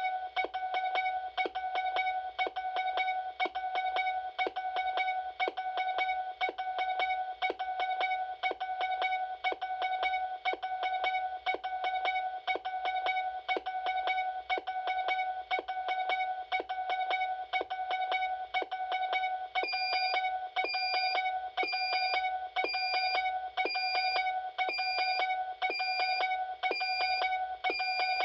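Spacelabs Ultraview DM3 patient monitor sounding its red, high-priority alarm: a rapid, evenly repeating sequence of pulsed tones. About two-thirds of the way through, a separate high-pitched beep joins in, sounding about once a second alongside it.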